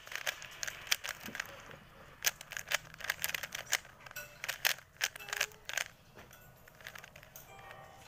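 Plastic 3x3 Rubik's cube being turned rapidly by hand: a quick, irregular run of clicks and clacks as the layers snap round, several a second.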